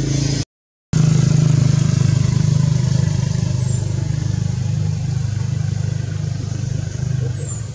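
An engine running steadily with a low pulsing hum. It cuts out completely for about half a second near the start and eases off slightly near the end.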